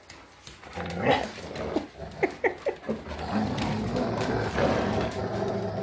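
Dogs tussling over a stuffed denim toy: a few short, high cries about two seconds in, then low, steady growling from one dog guarding the toy.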